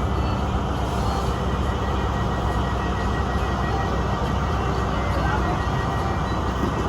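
Steady running noise of a vehicle in motion: a loud, even low rumble with a faint thin high tone above it.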